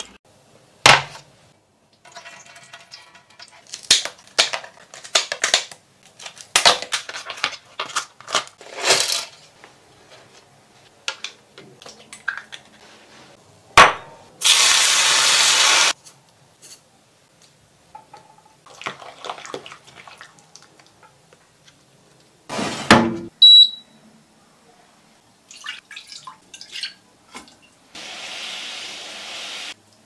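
Kitchen cooking sounds: scattered clinks and knocks of utensils and dishes. About halfway through comes a loud hiss lasting about two seconds, hot oil poured over minced garlic. Near the end there is a softer hiss.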